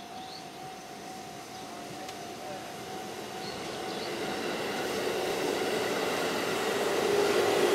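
Freight train hauled by a JR Freight EF200 electric locomotive approaching, a rumble of wheels and motors growing steadily louder as it nears.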